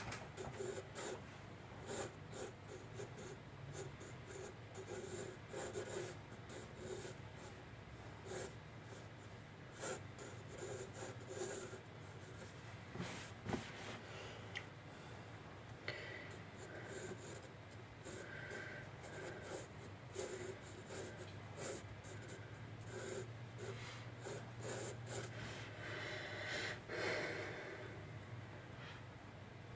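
Pencil sketching on sketchbook paper: many short, irregular scratchy strokes in quick runs, with brief pauses between them.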